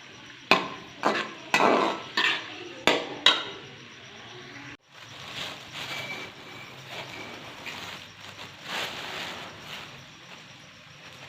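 Kitchen utensils knocking against cookware, six sharp knocks in the first few seconds. After a break, lighter clinks follow.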